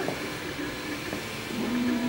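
MakerBot 3D printer printing: its stepper motors whine in steady tones that change pitch as the extruder head moves, dropping to a lower, louder tone about one and a half seconds in, over a steady hiss.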